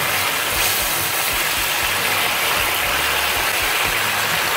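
Ginger and soybean sauce sizzling and bubbling hard in a hot wok while it is stirred with a wooden spatula: a steady hiss with fine crackling throughout.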